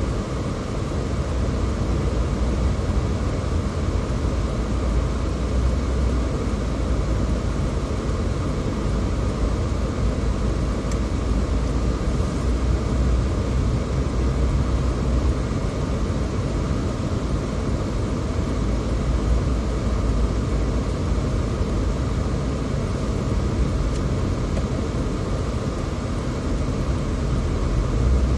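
A car driving: a steady low rumble of engine and road noise that holds even throughout.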